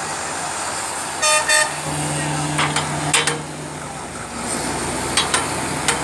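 Concrete slipform paver running with a steady hum that picks up about two seconds in. Two short horn toots come about a second in, and a few sharp metallic clanks follow.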